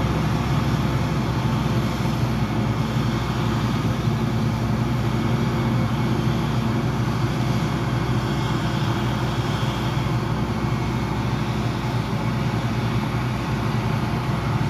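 Self-propelled forage harvester chopping corn for silage, its engine and chopper running in one steady, heavy drone, together with the engine of the truck running alongside to catch the chopped crop.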